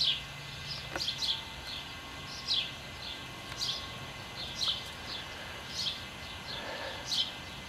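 Birds singing: short downslurred chirps repeated about once a second, with fainter chirps between.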